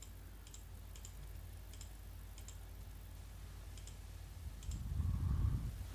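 Faint computer mouse clicks, single clicks spaced half a second to a second apart, over a steady low hum. A brief low rumble comes near the end.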